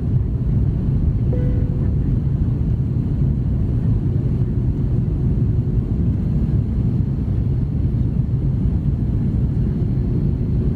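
Steady low rumble of an Airbus A330-300 airliner in flight, heard from inside the cabin: engine and airflow noise at an even level.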